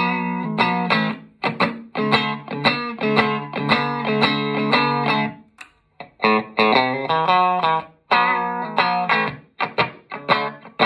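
'53-style Telecaster electric guitar played through an amp in a tone test: a quick, rhythmic run of picked chords and notes, stopping briefly twice.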